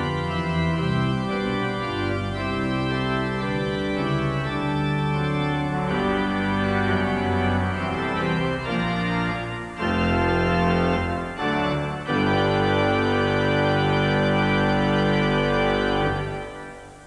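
Instrumental closedown music played on an organ: sustained chords moving every second or two, ending on a long held chord that fades out near the end into tape hiss.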